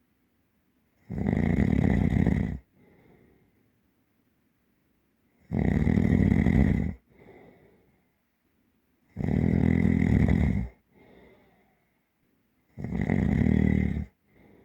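Deep, heavy snoring: four loud snores, each about a second and a half long and coming roughly every three and a half seconds, each followed by a soft breath out.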